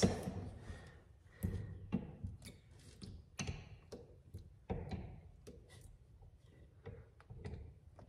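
Light, scattered knocks and taps from a metal hand plastisol injector pressed into a soft-plastic bait mold while melted plastic is shot into the cavities.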